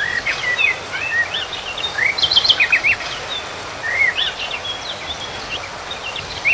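Small birds chirping and twittering in quick overlapping notes, busiest about two seconds in, over the steady rush of flowing water.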